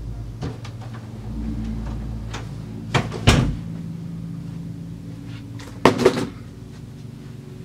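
Several knocks and thumps over a low, steady hum, the loudest pair about six seconds in, like a cardboard box with scissors on it being set down on a table.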